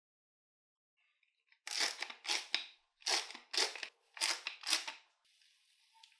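Wooden salt mill twisted over a frying pan, grinding salt in about six crunching strokes that come in three pairs. After that a faint sizzle of frying batter in the pan comes in.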